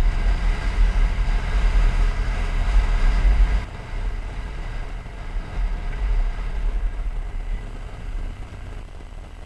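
BMW GS boxer-twin motorcycle running at road speed, with wind rushing over a bike-mounted microphone. A little over a third of the way in the sound drops suddenly and the bike runs on more quietly.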